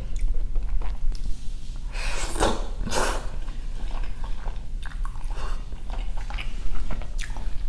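Close-miked eating sounds of ramen noodles in birria broth: two short slurps about two and three seconds in, then chewing with small wet mouth clicks.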